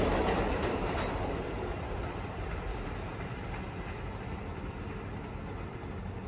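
New York City subway train on the elevated 7 line pulling away from the station. The rumble of its wheels on the track fades over the first few seconds to a low, steady background rumble.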